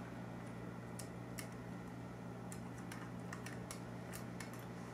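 Light, irregular clicks and ticks of a precision Torx screwdriver working tiny screws out of a portable DAC/amp's case, over a steady low hum.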